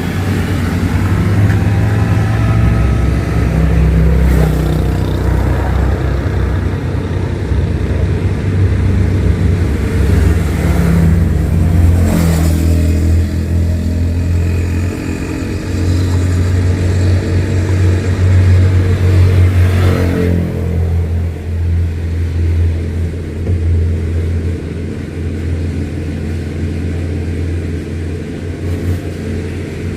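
A motor vehicle engine running steadily, its pitch shifting up and down a couple of times as it speeds up and slows.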